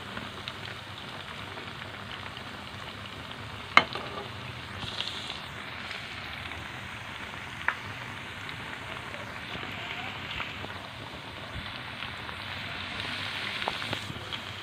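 Idli vadas sizzling steadily as they deep-fry in hot oil. A sharp click sounds about four seconds in and a lighter one near eight seconds.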